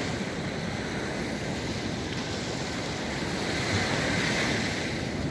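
Surf washing onto a sandy beach, with wind on the microphone; the wash swells a little louder about four seconds in.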